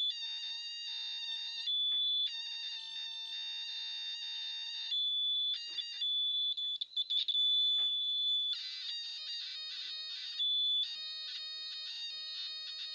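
Digital multimeter's continuity-test buzzer sounding a high electronic beep in stretches a second or two long, stopping and starting and changing tone from one stretch to the next, played like a tune. From about the middle on, the beep turns choppy and pulsing.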